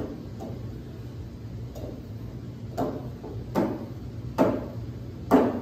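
Draw knife paring thin shavings from wood with a sharp blade: about six short cutting strokes, roughly one a second, the last three loudest. A steady low hum runs underneath.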